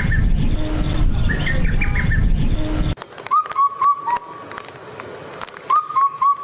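Birds calling, in two recordings spliced together. First, a bird's call phrase of several quick notes repeats twice over a steady low rumble like wind on the microphone. After a sudden cut about three seconds in, a different bird gives two series of three or four short, hooked notes.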